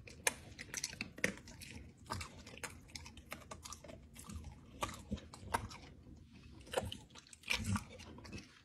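Dry kibble being crunched and chewed by a pet eating from a ceramic bowl, in a run of short, irregular crunches.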